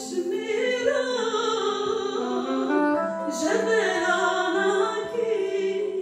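A woman singing a slow, ornamented melody, accompanied by a long-necked lute (bağlama) and a soprano saxophone. Steady held low notes sit beneath the voice, with a step down to a lower held note about halfway through.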